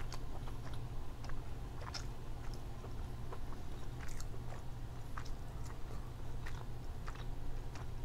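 A person chewing king crab meat up close to the microphone: a run of small, irregular mouth clicks and smacks over a steady low hum.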